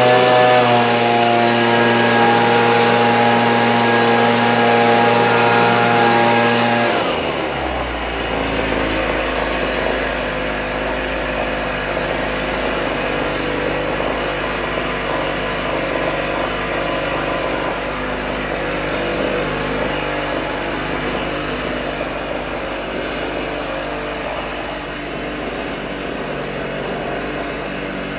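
Echo PB-2620 handheld leaf blower's two-stroke engine running after a cold start. It runs at higher revs, then about seven seconds in drops to a lower, steady idle and keeps running evenly.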